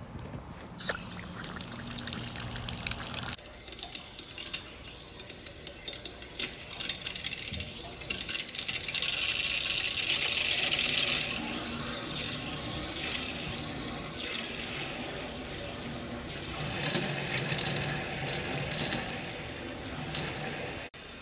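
Water running steadily through a water heater's copper piping and a hose as its valves are opened, the flow growing louder for a few seconds midway. Near the end come several sharp metallic clicks and knocks from the valves being handled.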